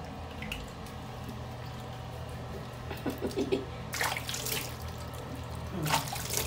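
Bath water splashing as a hand scoops and sloshes it over a newborn's back in a plastic basin, in short splashes about four seconds in and again near the end.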